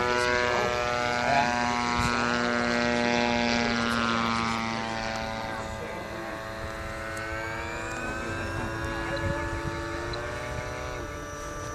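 Radio-controlled model airplane's engine running steadily in flight, a propeller hum that drops in loudness about halfway through, with slow pitch glides in the second half.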